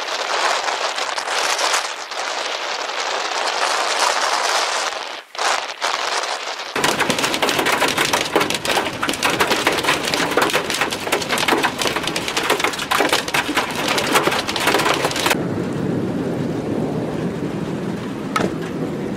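Storm noise in three parts. First a steady rush of wind and rain. Then, about seven seconds in, dense rapid clicks of hail and rain hitting a car's windshield and roof over the low rumble of the moving car. About fifteen seconds in, it gives way to a softer steady rush.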